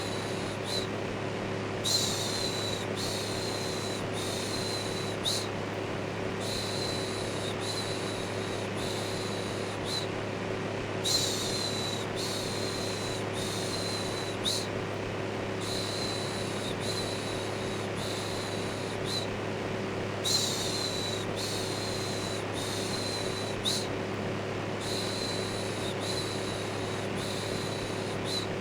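Electric fan running steadily with a low hum, overlaid with a looped 'shhh' shushing sound that comes in runs of short shushes, each run lasting about four seconds with a brief gap between runs.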